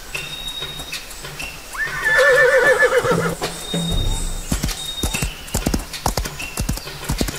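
A horse whinnying once, about two seconds in, in a shaky wavering call lasting about a second and a half, followed by a run of clip-clop hoofbeats. Background music plays throughout.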